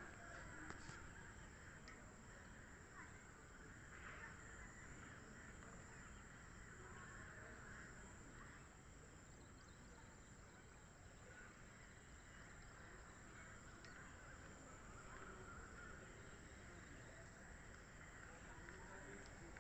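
Near silence: faint outdoor background with occasional distant bird calls.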